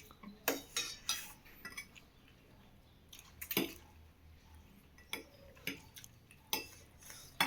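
Cutlery clinking and scraping against plates while instant noodles are eaten, in short scattered clicks about once or twice a second.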